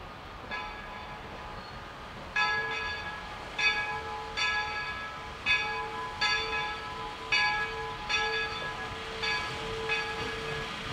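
Locomotive bell ringing steadily, about one stroke a second, with a fainter first stroke about half a second in and a lingering hum between strokes.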